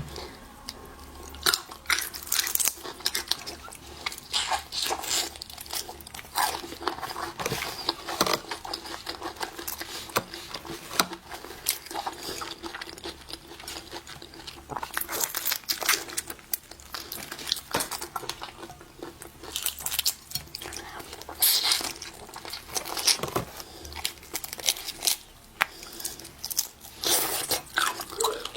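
Close-miked eating of seafood: chewing and biting, with frequent crisp crunches and wet clicks at an uneven pace.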